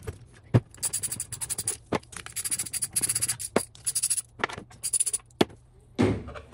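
A metal hand tool loosening the bolts that hold the mounting plate to a pool pump motor: repeated scratchy scraping with several sharp metallic clicks, and a louder clatter near the end.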